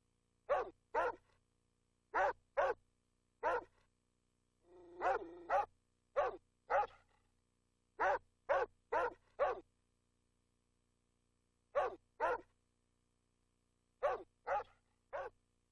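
Dog barking repeatedly as an added sound effect, in pairs and quick runs of up to five barks, with pauses of a second or two between.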